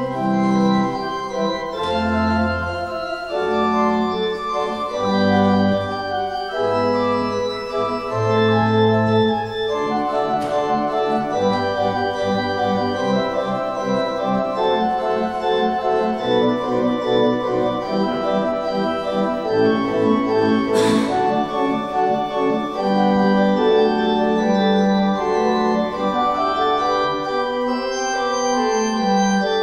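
Church organ playing a slow hymn-like piece in sustained chords over a moving bass line. A brief sharp noise cuts through about two-thirds of the way in.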